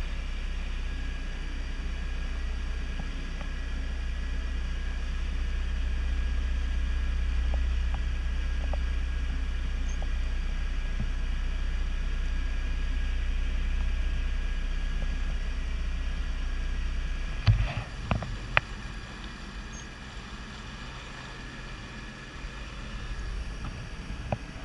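Jet ski running across the water, a steady low drone with rushing water and wind. About 17 seconds in come a few sharp knocks, and the drone drops to a quieter level.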